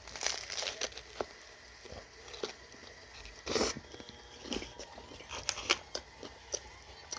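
Bites into a grinder sandwich on toasted French bread, the crust crunching, then chewing; the loudest crunch comes about three and a half seconds in.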